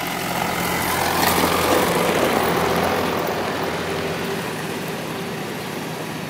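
Isuzu dump truck's diesel engine running as the truck reverses, growing louder about a second in and easing off again.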